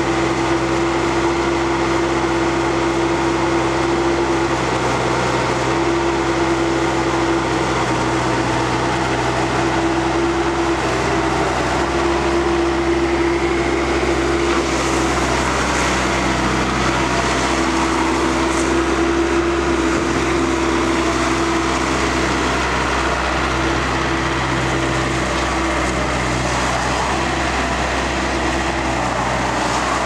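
Bobcat S160 Turbo skid steer's turbocharged diesel engine running steadily while the machine is operated, with a humming tone that comes and goes several times over the engine noise.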